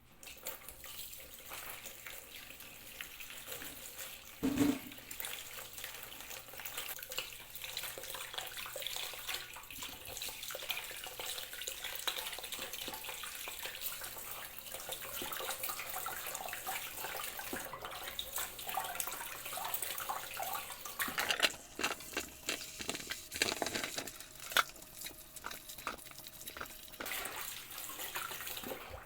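Water running from a tap into a sink, with a single knock about four seconds in. In the last third the flow is broken by irregular knocks and clatter.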